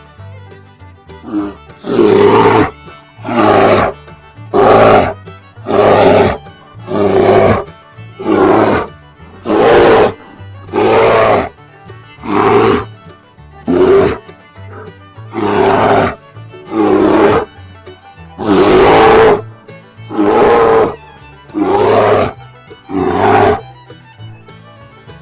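A bear roaring over and over, about one short roar every second and a half, over a light background music track.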